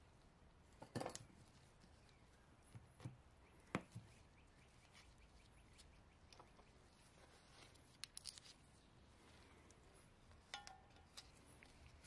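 Mostly quiet, with scattered small metal clicks and clinks as a valve guide driver tool and its washers are handled and set onto an aluminium cylinder head; the loudest come about a second in and just before four seconds, and one short ringing clink comes about a second before the end.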